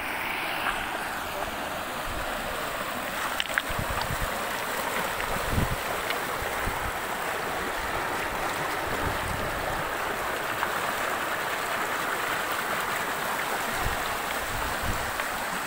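Fast-flowing river rushing over rocks, a steady noise of running water, with a few low thumps now and then.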